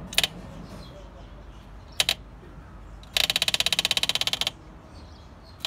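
Electric fuel pump clicking rapidly for about a second and a half as it pumps fuel through to the carburettor, after two single clicks.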